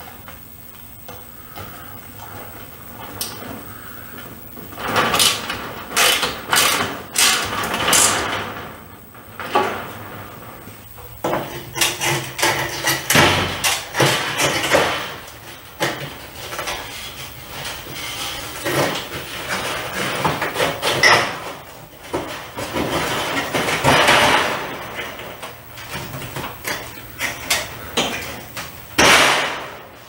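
Sheet-metal light cover with a wire-mesh guard being handled and fitted: repeated scraping, rattling and knocking of metal as its end piece goes on and the cover is slid up into a fluorescent ceiling fixture.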